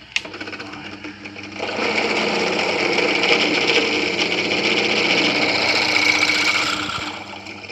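Drill press running with a 7mm bit cutting the centre hole in a Meccano bracket. The cutting grows louder about a second and a half in, holds steady, then eases off near the end as the bit breaks through.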